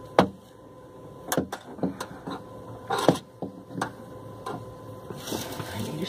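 Irregular clicks, knocks and scrapes from a hand working at the pipe fitting and supply hose on top of a water heater, with a brief hiss near the end.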